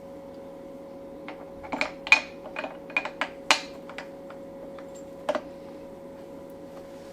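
Light metallic clicks and clinks of tools on the engine, a quick run of about a dozen between one and four seconds in and one more just past five seconds, as the Ducati 848 cam locking tools are fitted. A faint steady hum underneath.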